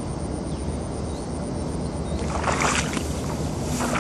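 Dry rice stalks rustling as they are grabbed and handled, in two bursts, the first a bit over two seconds in and the second near the end, over a steady low hum.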